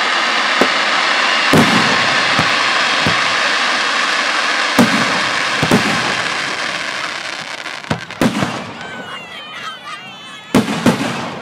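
Aerial display firework shells bursting overhead: about ten sharp bangs over a dense crackling that fades away about eight seconds in, then two bangs close together near the end.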